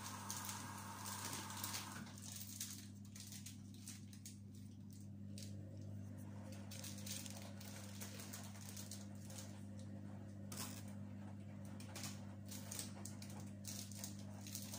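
Soft rustling and scattered light taps of gloved hands peeling spring roll wrappers apart and spooning filling onto one, over a steady low hum. A hiss that is there at the start stops about two seconds in.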